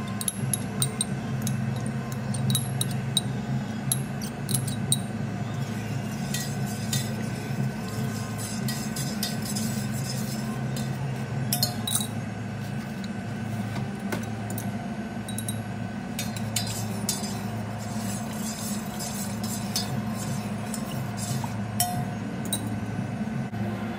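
Glassware and dishes clinking, with many short, sharp clinks scattered throughout, over a steady low hum.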